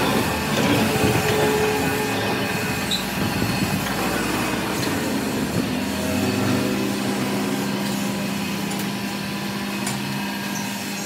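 A heavy engine lathe running, spinning a long trolley axle tube in its chuck: a steady mechanical drone of motor and gearing. A steady low hum sets in about halfway through.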